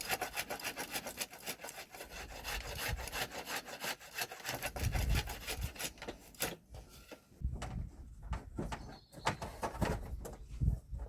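A hand tool rasping on wood in quick back-and-forth strokes, like hand-sawing or filing a stick. About halfway through the strokes stop, and scattered knocks and thuds follow as the work is handled.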